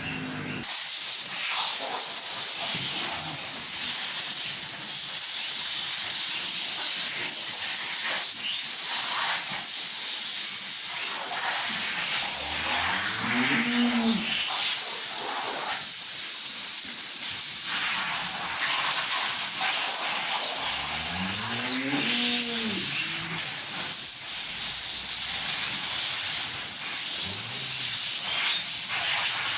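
Cattle mooing: two long, low moos that rise and fall in pitch, the first a little before halfway and the second about two-thirds in, and a shorter one near the end. A steady loud hiss runs under them.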